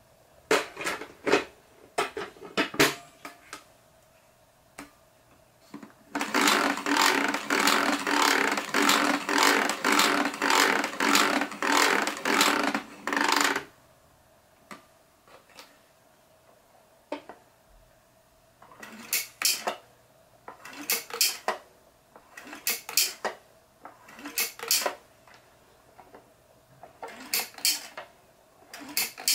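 Hard plastic parts of a Toshiba VC-8300 canister vacuum cleaner being handled and fitted together: clicks and knocks. A dense run of rapid knocking lasts several seconds in the middle, and later there are scattered clicks in small groups.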